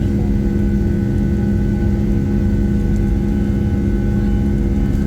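Steady, loud drone of a jet airliner's engines heard from inside the passenger cabin, with an even low rumble and a constant hum.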